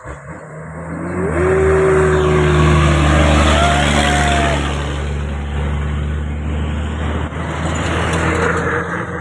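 A Hino Dutro tanker truck's diesel engine and tyres as it drives past close by, getting louder about a second in, loudest a few seconds in, then easing off as it pulls away. A few brief held tones sound over it while it passes.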